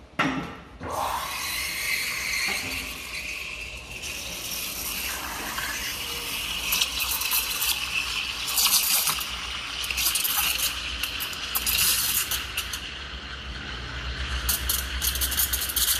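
Espresso machine steam wand heating chocolate milk in a stainless steel pitcher: a loud steady hiss that starts suddenly just after the beginning, with a high whine and irregular sputtering of the steam in the milk.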